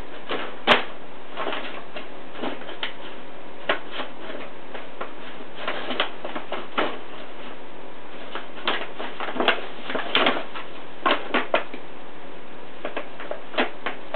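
Brown paper bag crinkling and rustling in irregular bursts as cats paw at it and push their heads inside. The crackles come in clusters, with a sharper snap about a second in and a busier spell near the middle.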